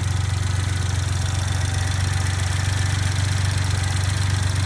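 Suzuki Jimny JA11's three-cylinder engine idling steadily, carrying the abnormal noise the car was brought in for. The noise was traced to the idle-up sensor wiring knocking against the engine bay.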